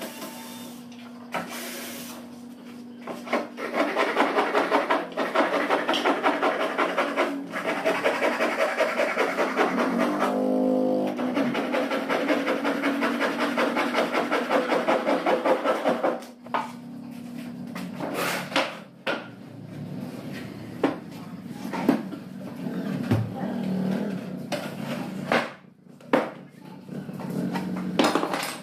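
Hand saw cutting through a plywood board in steady back-and-forth strokes, about two to three a second, for some twelve seconds. The sawing is followed by scattered knocks and clatter of boards and tools being handled.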